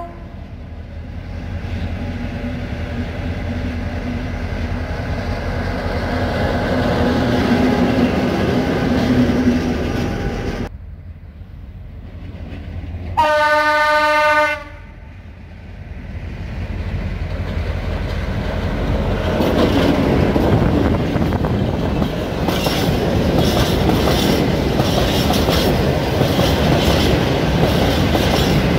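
A diesel locomotive approaches, its engine growing steadily louder. After a cut, a second locomotive sounds one horn blast of about a second and a half. Then a long freight train of wagons and container flats passes close by, its wheels clattering over the rail joints in a quick, regular rhythm.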